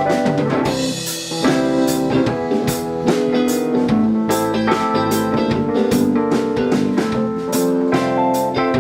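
Live pop-rock band playing an instrumental passage with drum kit keeping a steady beat under keyboards and guitar.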